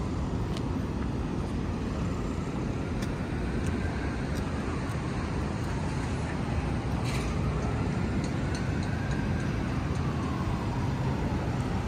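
Steady city street traffic noise rising from busy Canal Street below. From about four seconds in, a faint siren wails, slowly rising and falling.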